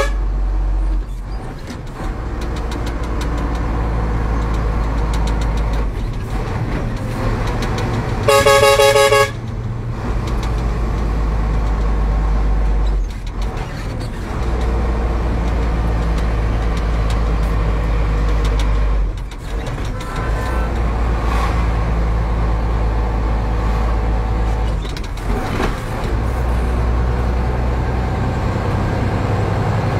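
Truck engine running steadily, heard from inside the cab, its low rumble dipping briefly several times. A vehicle horn sounds once for about a second, about eight seconds in.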